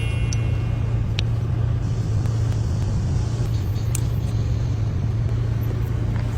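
A car engine running steadily, a constant low hum with a few faint ticks.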